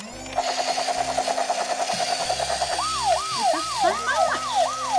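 Toy rescue helicopter's electronic sound effects. First a fast pulsing beep, then, from just under three seconds in, a siren whose pitch jumps up and slides down about three times a second, with a steady low hum underneath.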